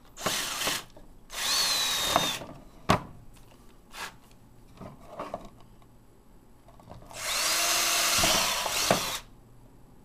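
Cordless drill boring pilot holes through the plastic wall of an Otterbox 3250 case, running in three bursts that each rise in pitch as the motor spins up, the last and longest in the second half. A sharp click comes just before the middle, with a few light knocks in the pause.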